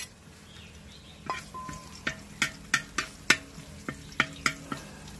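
Chopped garlic frying in hot oil in a large wok, stirred with a metal spoon: a faint sizzle under a run of sharp, ringing clicks of the spoon on the wok, about three a second, starting about a second in. A single clink at the very start as the garlic is tipped in from a plate.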